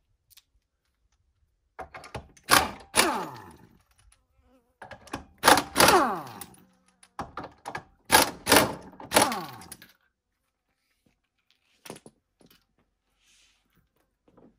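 Air impact wrench loosening the lug nuts of a Jeep Wrangler's tailgate-mounted spare tire: three loud runs of hammering, each ending in a falling whine as the tool spins down.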